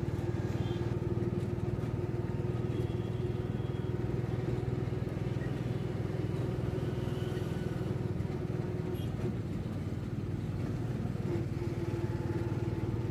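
A vehicle's engine runs with a steady drone while driving, amid road traffic that includes motorcycles.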